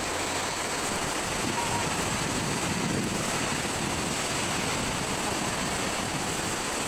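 Steady rushing of fast-flowing muddy water in a stone-lined channel, an even noise with no break.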